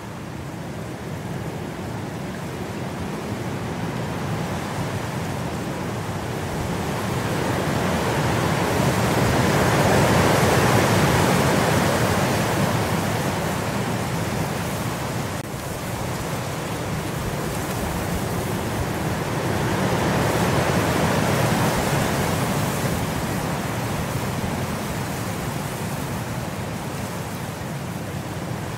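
Continuous rain noise, a steady hiss and patter with no speech, swelling louder about ten seconds in and again about twenty seconds in.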